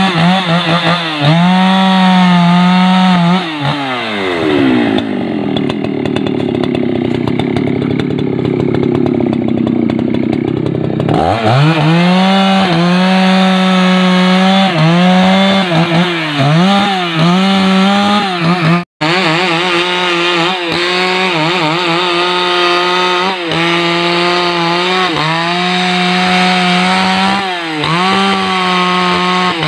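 Husqvarna 288XP chainsaw, a large two-stroke saw, running hard while cutting rubberwood logs. It revs in short blips between cuts. About four seconds in its pitch drops and stays low for about seven seconds while the chain is loaded in the wood, then climbs back to full revs.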